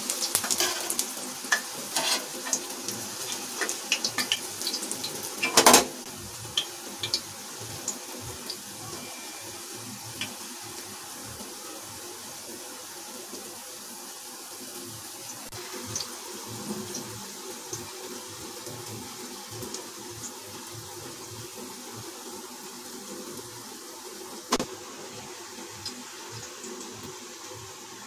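Imarti frying in hot oil in a kadhai: a steady sizzle. For the first six seconds a spatula clinks and scrapes against the pan as the pieces are turned, with one louder knock about six seconds in.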